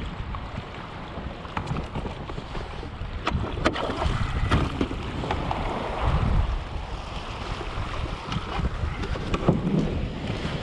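Wind buffeting the microphone over water washing around a pedal-driven kayak hull, with small waves breaking near the shore. A few sharp clicks come about three to five seconds in.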